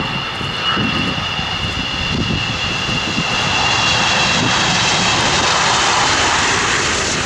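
Jet airliner engines passing close, with a steady high fan whine over a roar that swells and then holds near its loudest.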